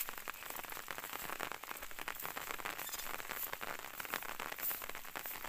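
Light rain pattering, many small irregular drop taps over a soft hiss.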